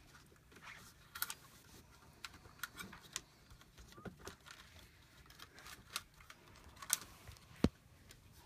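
Scattered small clicks and taps from an RV ceiling light fixture and its wiring being worked on with hand tools, with one sharper, louder click near the end.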